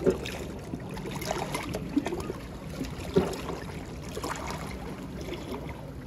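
Small sea waves lapping and sloshing against shore rocks, with a few brief splashes.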